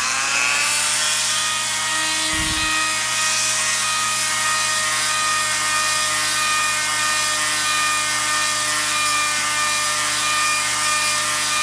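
Dremel rotary tool with a cutoff wheel running steadily at high speed, a loud even whine with a hiss, as the wheel trims and squares off the end of a plastic tower LED.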